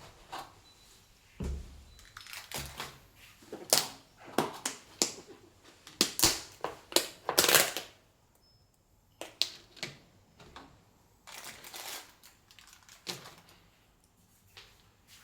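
Irregular clicks, taps and crinkling from handling things by hand, packed most densely in the first half, then a brief lull and a few scattered knocks.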